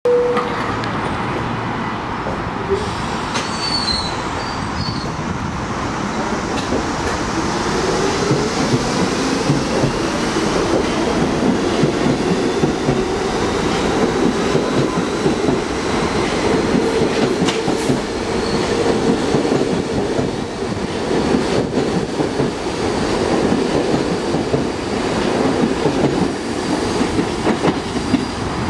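R68A subway train pulling out of the station and accelerating past: a steady rumble with wheels clattering over the rail joints, and the motors whining up in pitch as it gathers speed.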